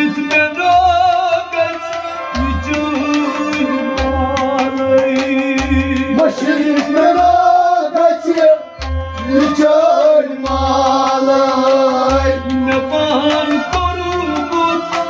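Kashmiri Sufi devotional song: a voice singing over a harmonium's held chords and plucked rubab, with a hand drum beating out a steady rhythm.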